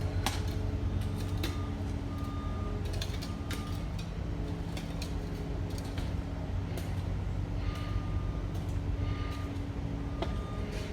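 A heavy vehicle's engine running steadily, with a reversing alarm beeping in short pairs several times and scattered metallic clicks and clanks.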